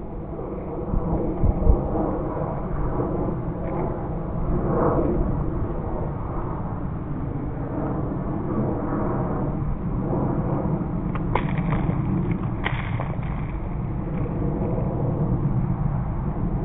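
Ice-storm night ambience: a steady rough rumble of wind and weather on a phone microphone, with a few sharp cracks like ice-laden branches snapping about 11 to 13 seconds in.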